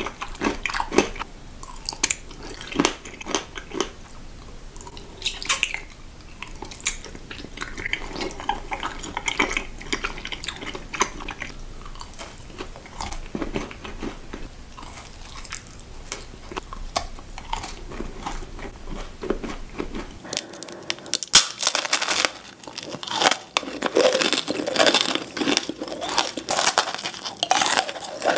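Close-miked eating: bites and crunching chews of pink sweets and candy, with loud mouth sounds. From about two-thirds of the way in the crunching comes faster and louder.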